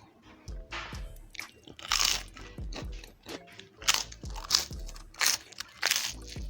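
Close-up crunching and chewing of crispy pata, deep-fried pork knuckle with crackling skin: sharp crunches come roughly once a second, over soft background music.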